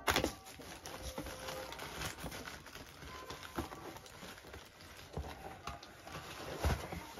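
Cardboard packaging being handled inside a printer's shipping box: rustling with scattered light knocks and thumps, and a sharper bump right at the start.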